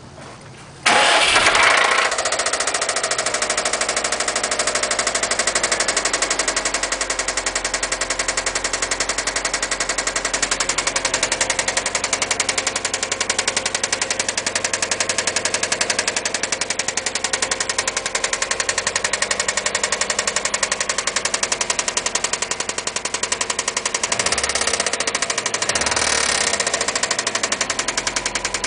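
2002 Subaru Impreza WRX's turbocharged EJ20 flat-four starting about a second in, flaring up briefly, then running at idle with a rapid, even knock in step with the engine speed: the sound of a spun connecting-rod bearing. Two brief blips of the engine near the end.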